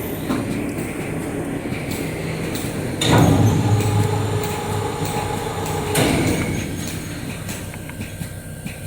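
Steady machinery hum. About three seconds in, the wide belt sander's thickness-setting motor starts, runs steadily with a hum for about three seconds while the table is set to panel thickness, then stops abruptly.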